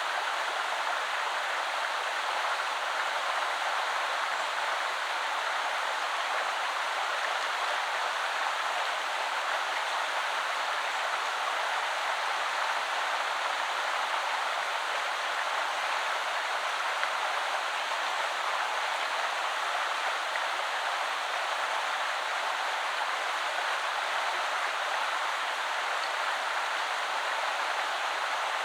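A shaded woodland river flowing: a steady, even rush of running water that holds the same level throughout.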